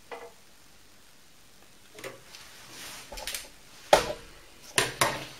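Handling of a digital caliper and metal tools at a stopped metal lathe: scattered sharp clicks and knocks, the loudest about four seconds in, followed by two more in quick succession about a second later.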